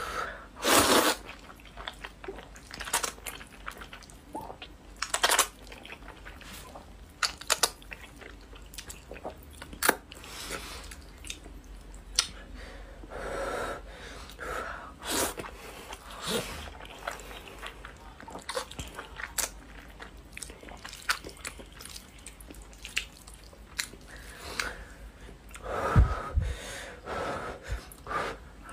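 A person eating spicy instant noodles with chopsticks, miked up close: slurping and chewing, with irregular sharp wet smacks and clicks of the mouth.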